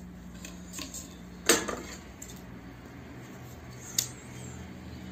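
A few sharp metallic clicks from handling a sewing machine and fabric: the loudest about a second and a half in, then a scissors snip cutting the thread about four seconds in.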